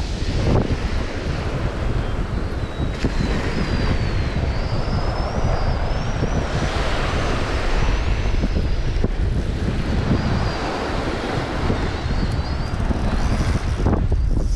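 Wind buffeting the microphone over the wash of waves breaking, with faint thin high-pitched wavering whistles a few seconds in and again near the end.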